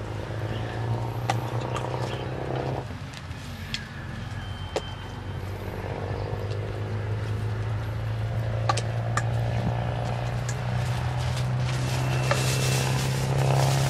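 A metal spoon clinking and scraping against a stainless steel bowl as a salad is tossed and served, in scattered sharp clicks. Underneath is a steady low hum.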